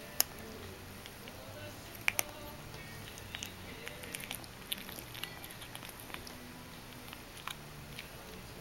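Persian kitten crunching dry cat treats: scattered crisp clicks and faint chewing ticks, with a few sharper cracks just after the start and about two seconds in.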